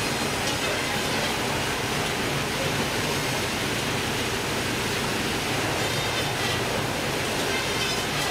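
Steady mechanical noise of a fish-processing line running: stainless-steel processing machine and plastic modular conveyor belts, an even rushing hiss like running water.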